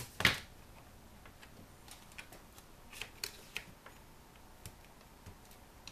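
Small plastic clicks and ticks of a ThinkPad T61 LCD panel being pried and pulled at in its lid, with one sharp snap just after the start and scattered light ticks after it. The panel is held by tape or glue and is not coming free.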